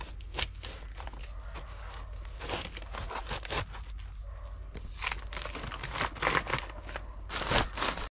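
Large knife sawing through a whole jackfruit's thick knobbly rind and fibrous flesh: irregular crunching, tearing strokes, busier in the last few seconds as the cut goes through.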